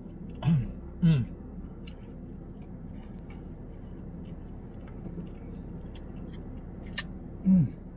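A man's voice making three short hums with falling pitch while eating, over a steady low hum inside a parked car's cabin. A single light click comes near the end.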